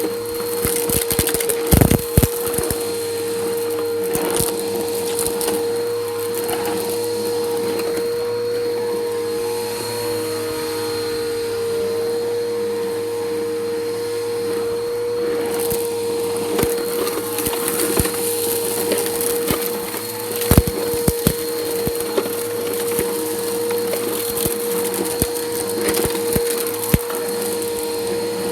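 Bissell Powerforce Helix upright vacuum cleaner running over concrete, its motor holding one steady tone while grit and debris crackle and click up through the nozzle. A couple of louder knocks come about two seconds in and again about twenty seconds in.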